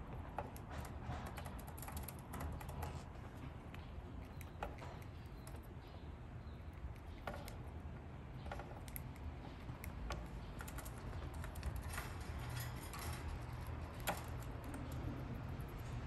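Irregular light clicks and taps from budgies' beaks and feet, with a low steady hum underneath.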